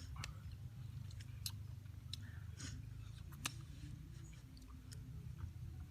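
Faint chewing and crunching of food, with scattered small clicks and one sharper click about three and a half seconds in, over a steady low hum.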